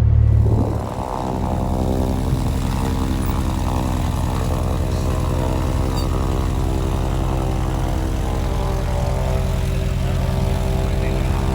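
Cessna's piston engine and propeller running steadily: a low drone that drops in level about a second in, then holds even.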